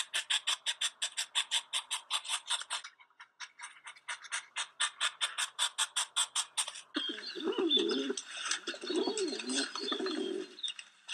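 Rapid rhythmic scratching, about nine strokes a second, pausing briefly near three seconds in. About seven seconds in it gives way to a dove cooing in three low, rolling phrases.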